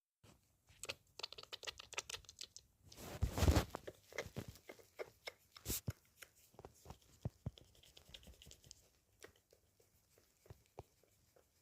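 Soft rustling, scratching and small clicks of close handling, with a louder noisy rush about three seconds in.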